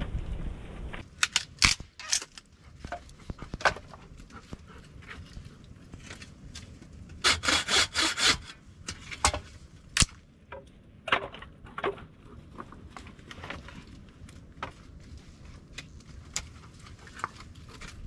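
Hand work on wood, most like sawing: scattered sharp knocks and cracks, with a quick run of about half a dozen strokes around seven to eight seconds in. It follows a second of low wind rumble at the start.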